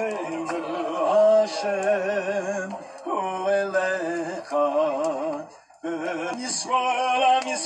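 A man singing a slow chant through a microphone, holding long notes with a strong vibrato; the singing breaks off for a moment a little before six seconds in, then goes on.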